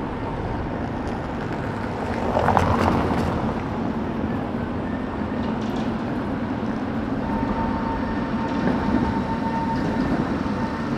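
Two-car Tatra T3-type tram running past over the rails, with a louder burst of wheel clatter about two and a half seconds in. A steady high whine joins in the second half.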